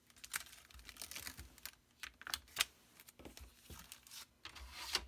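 Irregular light clicks, taps and crinkles of clear acrylic stamps and their plastic stamp sheet being handled, with a sharper tap about two and a half seconds in and a crinkle just before the end.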